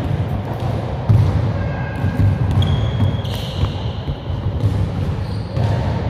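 Basketball bouncing on a gym floor, with a few brief high squeaks around the middle.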